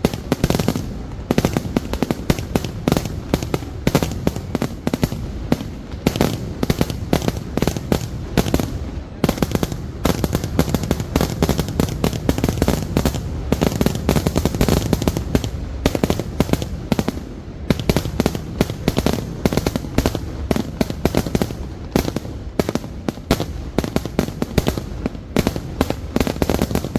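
Kerala temple-festival fireworks (vedikkettu) going off in a dense, rapid, unbroken string of explosions, many bangs a second like machine-gun fire.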